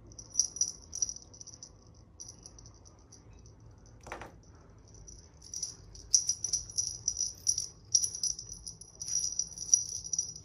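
A small jingle bell on a cat's feather-and-string teaser toy jingles in quick shaken bursts as a kitten swats at it. There are a few shakes at first, then it jingles almost constantly from about six seconds in.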